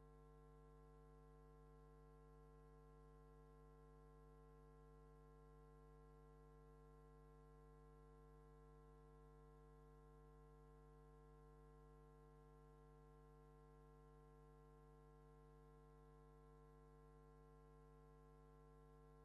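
Near silence with only a faint, steady electronic hum made of several held tones.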